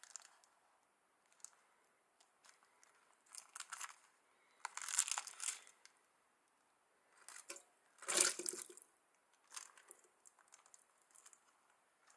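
Thin clear plastic food tray and its film lid crackling and crinkling in short irregular bursts as it is torn open and braised chicken gizzards are tipped out into an aluminium saucepan. The loudest bursts come about 5 and 8 seconds in.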